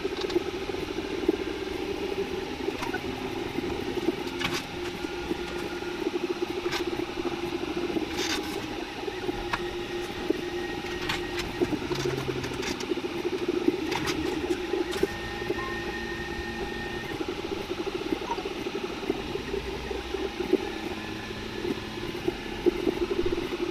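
Original Prusa i3 3D printer's stepper motors whirring and chirping as the print head moves back and forth laying down infill, over a steady hum, with scattered light clicks.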